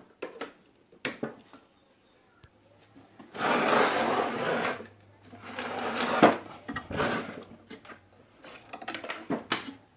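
Handling of an old valve radio's cabinet and chassis: scattered knocks and clicks, and two stretches of rubbing and scraping, the first a little over a second long and the second about a second long.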